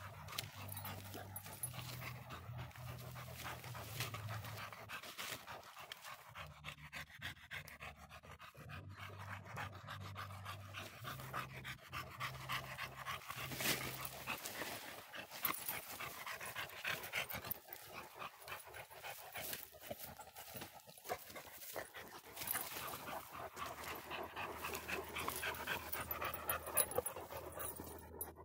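A dog panting in quick, rhythmic breaths.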